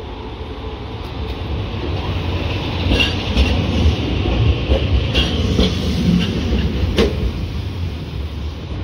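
Toyohashi Railroad city tram pulling away from the stop and running close past: the low rumble of its motor and wheels builds over the first few seconds, with several sharp clicks as the wheels pass over rail joints, the loudest about seven seconds in.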